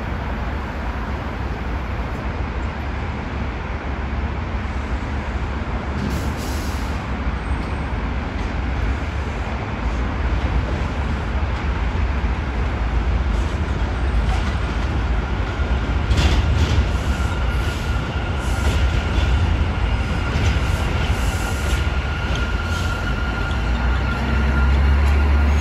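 New York City Subway J train pulling into an elevated station, its low rumble growing louder as it nears. A steady high-pitched squeal and clacks join in the second half.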